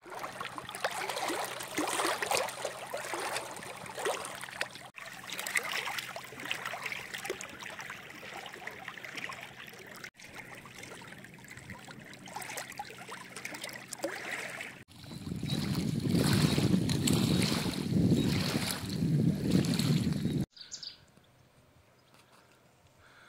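Water lapping and splashing at the shore, heard as a series of short clips that cut abruptly every few seconds. The loudest, fullest stretch comes in the last third, and near the end the sound drops to a faint background.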